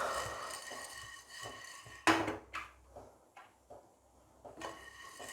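A spatula stirring chana dal as it dry-roasts in a pan, the dry lentils rustling, with a sharp scrape or knock of the spatula on the pan about two seconds in.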